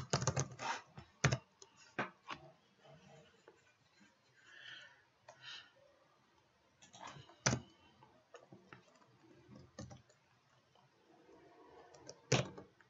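Computer keyboard being typed on in short irregular bursts of key clicks, with quiet gaps between them.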